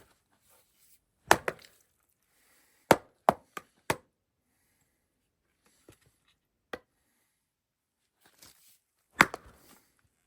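Sharp, irregular chopping strikes, about eight in all, with a quick run of four in the middle and a heavier blow near the end.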